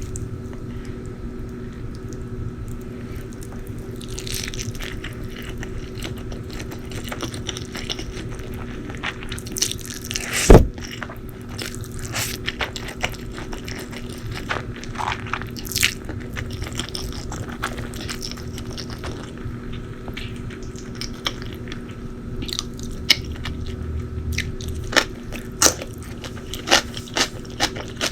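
Close-miked eating: biting and crunching on food, with chewing between the bites. A single loud knock about ten seconds in, and quicker sharp crunches near the end.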